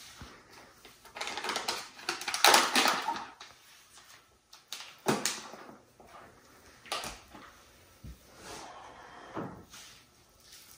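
A paper flour bag being handled, rustling and crinkling, loudest a second or two in, followed by a few sharp knocks as things are set down on the granite countertop.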